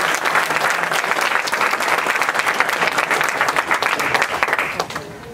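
Audience applauding: many hands clapping together, stopping quite suddenly near the end.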